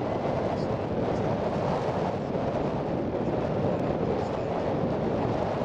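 Wind buffeting the microphone: a steady low rushing rumble with no distinct events.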